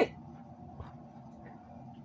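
Quiet room tone with a faint steady hum; nothing else stands out.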